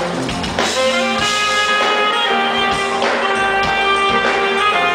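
Live smooth-jazz band: saxophone playing long held melody notes over electric bass, guitar, keyboards and drums.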